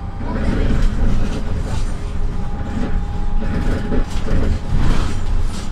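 City bus driving along, heard from inside the cabin: a steady low rumble of engine and road, with the body and fittings rattling and clattering over the road surface.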